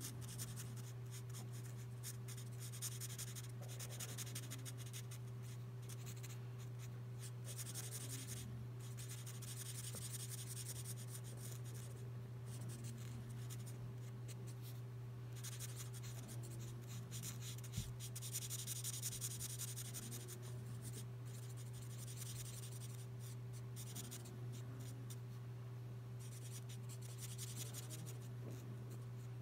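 L'emouchet twin-tip marker nib scratching across paper in runs of short, irregular colouring strokes, over a steady low hum.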